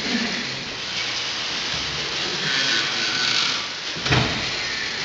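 1894 Hathorn Davey steam pumping engine running slowly: a hiss of steam about two and a half seconds in and a heavy knock just after four seconds, over the steady noise of the running machinery.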